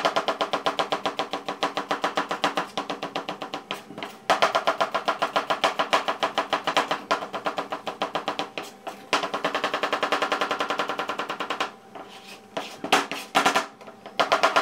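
Kitchen knife slicing peeled onions on a plastic cutting board in fast, even strokes, a steady rapid rhythm that breaks off briefly a couple of times near the end.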